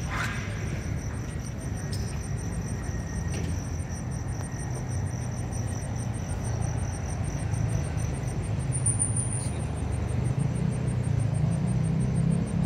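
Outdoor night ambience: a low rumble that grows louder in the last few seconds, under a steady, high, pulsing trill of crickets.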